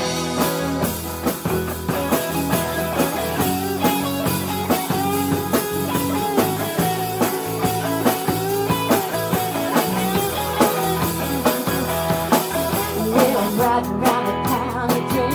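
Live band playing a song: hollow-body electric guitar and strummed acoustic guitar over a drum kit.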